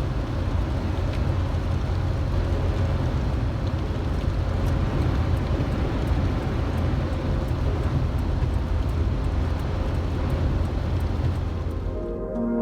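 Steady outdoor noise with a heavy low rumble and a hiss over it, ending abruptly near the end.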